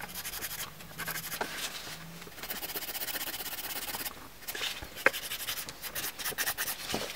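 Hand nail file rasping along the sides of a gel-coated nail in back-and-forth strokes with brief pauses; the strokes turn shorter and quicker in the second half, with one sharp tap about five seconds in.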